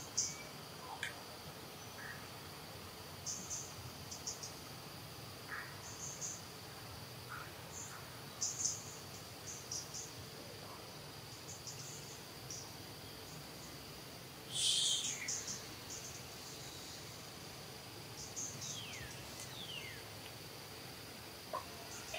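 Outdoor insect chorus: a steady high-pitched drone, with scattered short high chirps of birds over it. The loudest chirping comes about fifteen seconds in, and two short falling calls follow a few seconds later.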